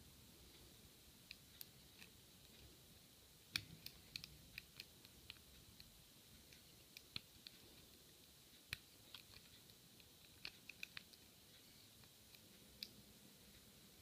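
Faint, irregular small metallic clicks of a hook pick and tension wrench working the pin stack of a brass Sesamee padlock, a pin-tumbler lock with serrated and spool pins. The clicks come in scattered clusters, most of them a few seconds in and again past the middle.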